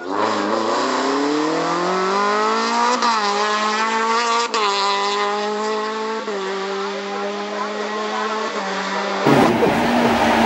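BMW 120d rally car's turbodiesel engine pulling hard away at full throttle. Its note rises over the first few seconds, then holds with a few small jumps in pitch. About nine seconds in it changes abruptly to a louder, rougher engine sound as the car runs close by.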